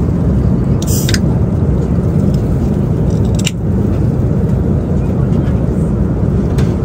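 Steady low rumble of a moving vehicle, with a few short sharp clicks, two of them about a second in, one midway and one near the end.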